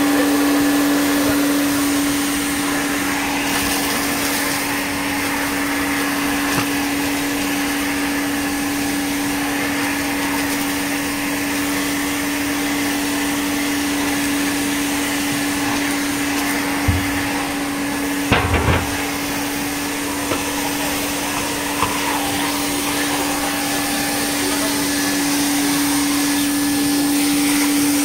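110 V 400 Hz aircraft backpack vacuum cleaner running steadily, a constant whooshing with a strong steady hum, as its floor nozzle is pushed over carpet. A few short knocks come about two-thirds of the way through.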